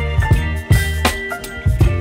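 Background music with a steady drum beat over deep bass notes.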